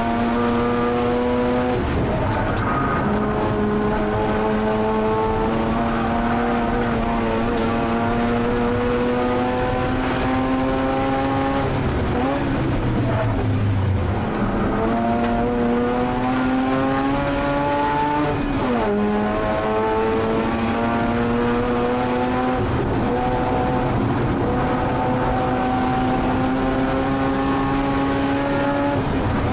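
Mazda RX-8 race car's two-rotor rotary engine heard from inside the cockpit, pulling hard with its pitch climbing slowly through long stretches. The pitch drops sharply at upshifts about two seconds in and again near nineteen seconds, and the revs dip and come back up around twelve to fourteen seconds in.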